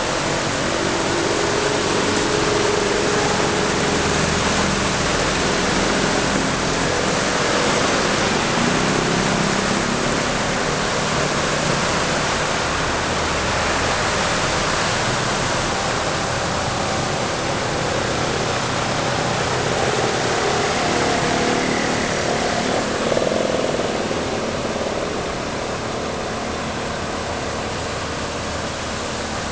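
Vehicles (pickup trucks, motorbikes, motorised tricycles) driving through floodwater on a road: engines running and tyres pushing through and spraying water, over a loud, steady rushing noise.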